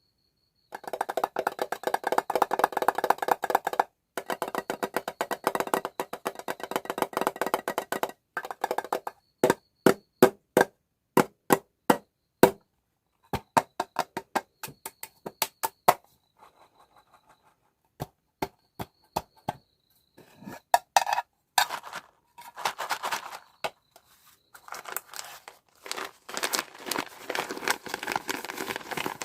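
Close-up handling of toy packaging and small items: crinkling and rustling, then a run of sharp separate taps and clicks, then more crinkling near the end.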